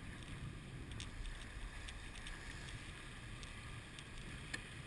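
Steady wind noise on the microphone and water rushing past the hull of a J30 sailboat under way, with a couple of faint clicks, the sharpest near the end.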